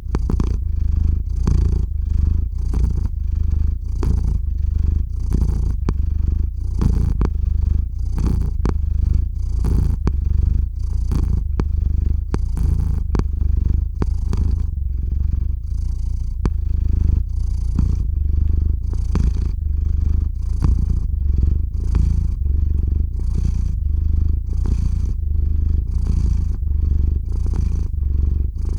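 Domestic cat purring close up, a steady low rumble that pulses evenly with each breath in and out.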